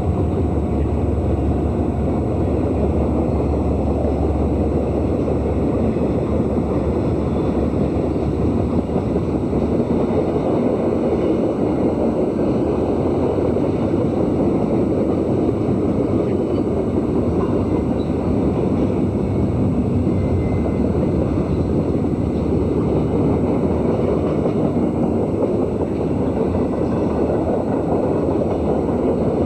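Freight train passing at speed: a steady, loud rushing rumble of wheels on the rails that holds level throughout.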